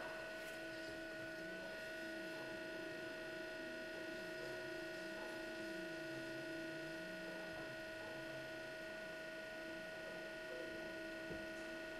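Steady electric hum of automatic car wash machinery, with several high, steady tones and a lower tone that slowly swings up and down every couple of seconds as the cloth curtain washer works over the car.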